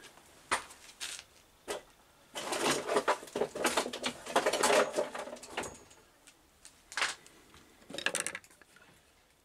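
Handling noise from a steel-braided cable and hand tools on a wooden workbench. A few sharp clicks come first, then a dense run of clattering and scraping in the middle, then knocks near the end as side cutters are picked up.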